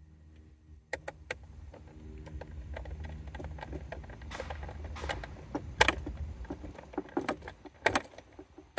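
Irregular clicks and clinks of small metal and plastic parts being handled while a fuel pump assembly is put together, with sharper knocks about six and eight seconds in, over a steady low hum.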